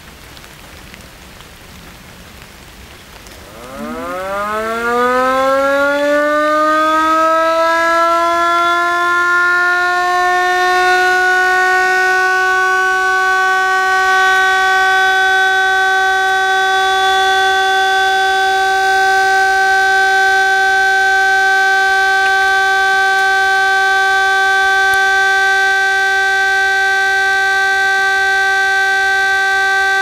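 S1 electric motor siren, rated 24 V but run on 12 V, spinning up about three and a half seconds in. Its wail rises in pitch over several seconds, then holds one steady tone with a stack of overtones.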